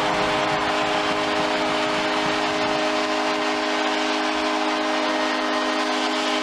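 Arena goal horn blaring in one long held blast over a home crowd cheering loudly, celebrating a goal.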